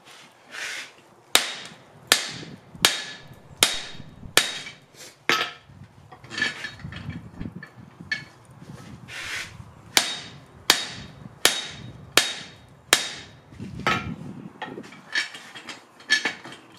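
Hand hammer striking the top of a guillotine tool to forge a red-hot bar of Atlantic 33 steel held in tongs. It is a steady run of ringing metal-on-metal blows, about one every three-quarters of a second. For a few seconds in the middle the blows are softer.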